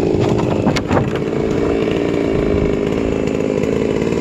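Chainsaw on a chainsaw mill running on steadily after a hard milling cut, left running to cool down, with a short clatter just under a second in.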